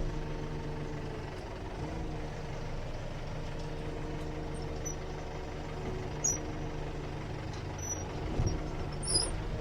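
Kubota M8540 tractor's diesel engine running steadily at low revs, with a couple of light knocks and a few faint high squeaks in the second half.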